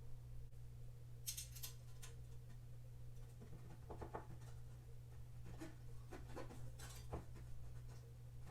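Faint scraping and light clicks of small screws and a screwdriver being worked into a metal shelf frame during hand assembly: a short scratchy rasp about a second in, then several brief clicks later on, over a steady low hum.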